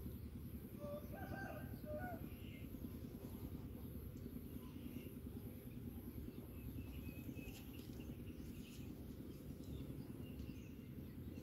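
Steady low outdoor background noise with a few faint bird chirps, the clearest about one to two seconds in.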